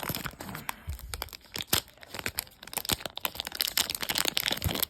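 Crinkling and tearing of a trading-card pack wrapper being opened, a dense run of irregular crackles and snaps.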